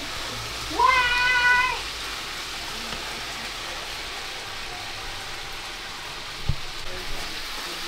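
A cat gives one drawn-out meow, rising at its onset and then held for about a second, over a steady hiss of food frying. A single low knock comes near the end.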